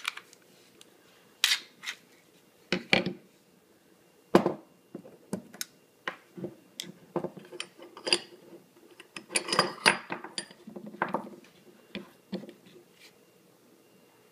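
Irregular metallic clicks, clacks and scrapes of a Glock pistol being field stripped: the slide comes off the frame, and the recoil spring and barrel are lifted out and set down on a wooden table. The clatter is busiest about nine to ten seconds in.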